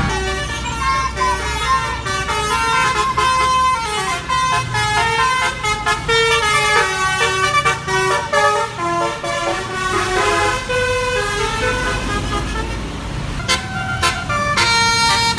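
A bus's telolet multi-tone horn playing a quick tune of changing notes over the low rumble of the bus engine, ending on a held horn note near the end.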